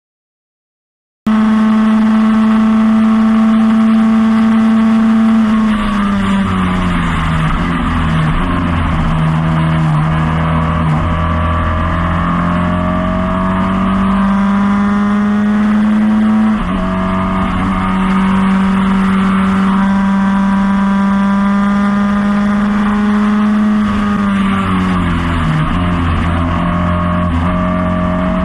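Formula Ford 1600 race car's Ford Kent four-cylinder engine at high revs under full throttle, heard onboard, cutting in suddenly about a second in. The revs fall away about five seconds in and again near the end as the car slows for corners, then climb steadily back, with a quick upshift about sixteen seconds in.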